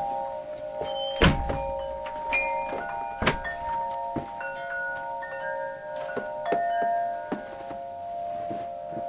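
Wind chimes ringing in the wind, several overlapping tones struck again and again. Two dull thumps come about a second in and again about three seconds in.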